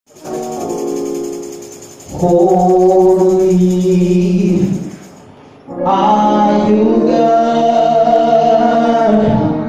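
Male vocal group singing a gospel song live in harmony, holding long notes, with a short break about five seconds in.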